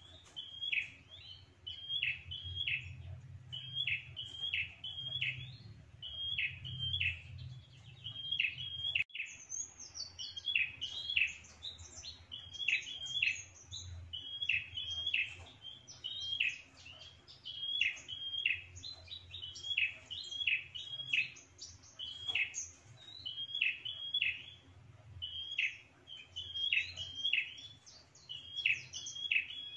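Prenjak (prinia) calling: a sharp double chirp repeated over and over, roughly once a second. From about a third of the way in, higher chirps join it. This is the lure call used to draw in rival prenjak, which answer to chase it from their territory.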